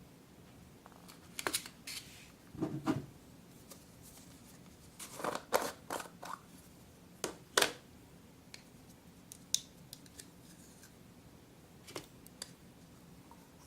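Scissors snipping about a dozen times, short sharp cuts in irregular clusters, then a few scattered ones.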